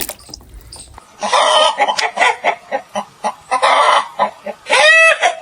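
Chicken clucking: a fast run of short clucks starts about a second in, and near the end comes a longer squawk that rises and falls in pitch.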